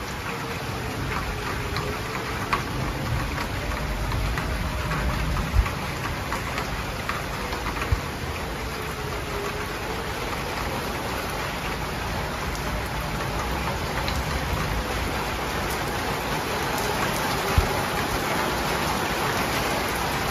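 Heavy rain pouring steadily, with a Whelen 2904 electronic outdoor warning siren faint in the distance beneath it, sounding a tornado warning on a slow wail that rises and falls over several seconds. A few sharp taps stand out from the rain.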